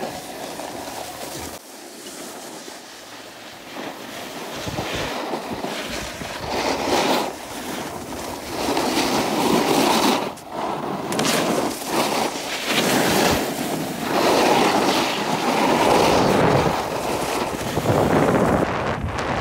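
Snowboard edges sliding and scraping over packed snow, with wind rushing over the phone's microphone; the noise swells and fades as the riders carve and gains speed.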